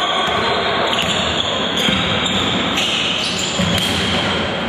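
Sound of a live basketball game in a gymnasium: the ball bouncing and players moving on the court, over a steady wash of crowd and voice noise in the hall.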